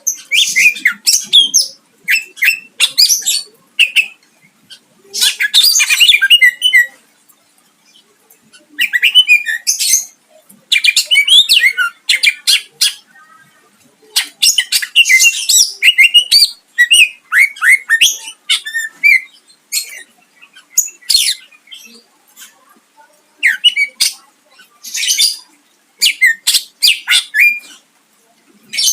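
Greater green leafbird (cucak ijo) singing a long, varied song. Fast, high, harsh chattering and whistled notes come in phrases of one to two seconds with short pauses, mixed with mimicked calls of other birds.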